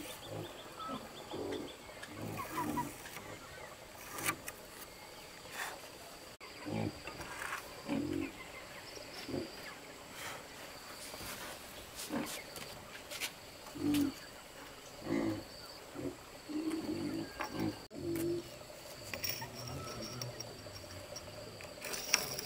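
Short, low animal calls repeating irregularly about every second or two, with occasional light knocks from wooden planks being handled.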